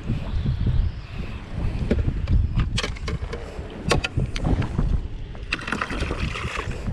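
Wind rumbling on the microphone and water moving against a small boat, with a few sharp knocks about three and four seconds in.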